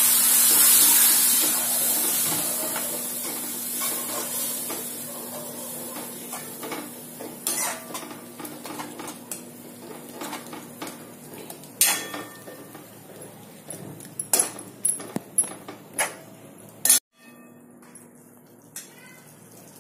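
Water hitting hot oil and onion masala in a pan sizzles loudly, then dies down over several seconds. A metal spoon stirs and scrapes in the pan, with a run of sharp clinks against the pan near the end.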